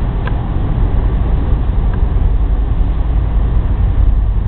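Steady low rumble of a car driving, its tyre, road and engine noise heard from inside the cabin.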